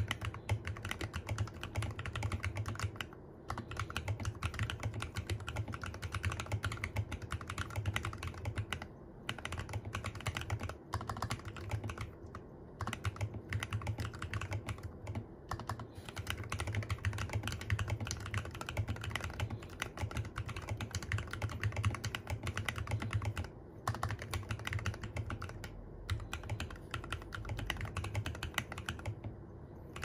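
Steady typing on a Filco Minila-R mechanical keyboard fitted with Glorious Panda tactile switches and lubed Costa stabilizers: a dense run of keystroke clacks broken by a few brief pauses.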